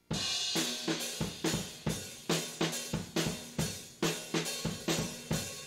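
Instrumental intro music: a drum kit playing a steady beat with cymbals and a bass line, starting suddenly at the opening.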